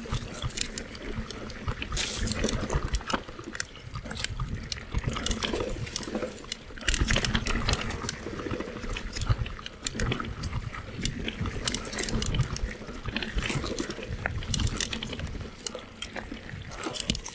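Mountain bike riding down a rough dirt trail: tyres crunching over dirt and rocks, with irregular knocks and rattling as the bike hits bumps and drops.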